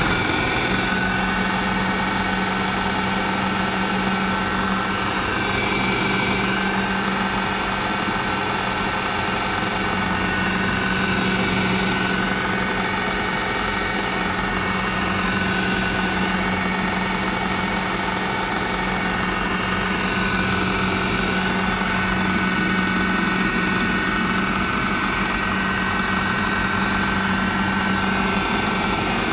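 Electric food processor motor running steadily at full speed, churning a thick garbanzo-bean, oat and pecan-meal burger mixture into a paste. A loud, even hum with a fainter whine above it.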